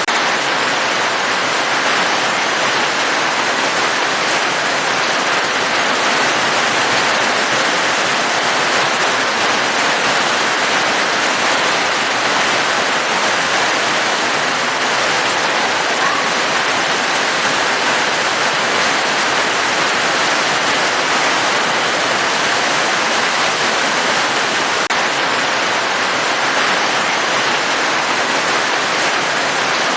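Steady, even rush of falling water, unchanging throughout, with no single drops or impacts standing out.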